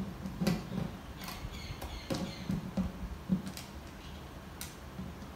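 Irregular light clicks, taps and faint scrapes of fingers handling a steel string and bridge pins on the bridge of a 12-string acoustic guitar, some with a soft knock from the guitar's body.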